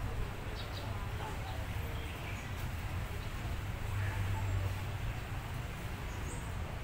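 Low steady hum of a stationary diesel train idling at the platform, swelling a little about four seconds in, under faint crowd chatter.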